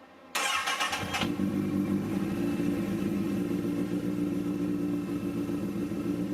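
Honda CBR1000RR SC59 inline-four motorcycle engine starting through an HRC silencer: a short loud burst as it fires about half a second in, then settling into a steady idle.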